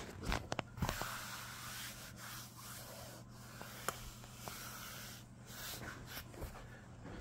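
Phone microphone rubbing and brushing against bare skin, giving an uneven scratchy rustle, with a few sharp clicks in the first second and another about four seconds in.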